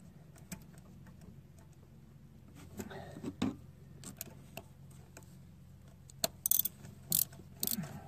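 Socket ratchet clicking in short runs near the end as a spark plug is turned into its hole in the cylinder head, with faint scattered taps and clicks of the tool before that.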